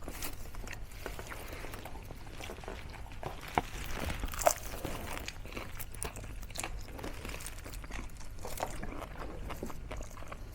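Crisp fried pork mesentery (chicharong bulaklak) being bitten and chewed, a run of small crunches and crackles, with two louder crunches about three and a half and four and a half seconds in.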